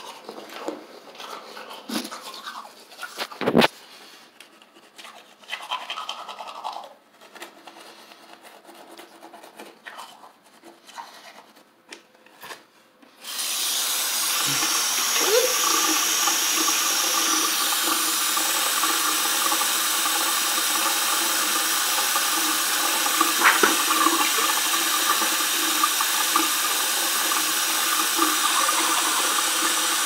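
Scattered handling knocks and clicks. About 13 seconds in, a bathroom tap is turned on and water runs steadily into the sink while teeth are brushed with a manual toothbrush.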